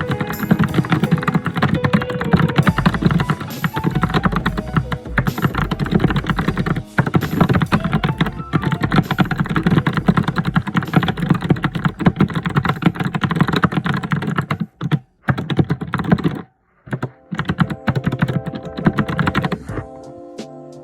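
Fast, continuous typing on a computer keyboard, a dense stream of key clicks. It breaks off briefly twice, about fifteen and seventeen seconds in, and thins out near the end.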